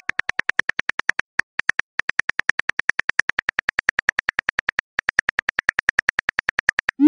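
Smartphone on-screen keyboard clicks, quick and even at about eight ticks a second, as a text message is typed and then deleted. A short rising swoosh comes right at the end.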